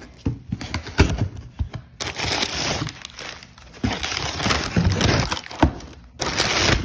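Crumpled kraft packing paper rustling and crinkling in a cardboard shipping box, handled by hand. There are a few sharp knocks in the first two seconds, then dense, crackly crinkling with a short pause just after six seconds.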